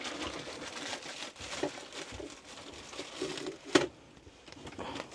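Rustling and handling of packaging, with one sharp click about three-quarters of the way through.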